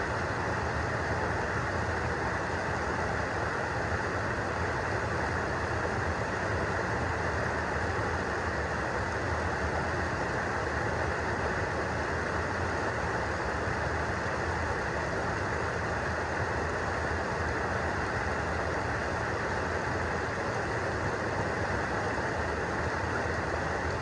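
Steady rush of a small stream waterfall pouring over a bedrock ledge and foaming around a wader's legs.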